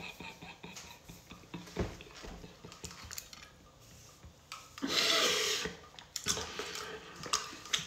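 A man laughing silently into a headset microphone: a breathy burst of held-in laughter about five seconds in, among small clicks and rustles from his hand and glasses near the mic.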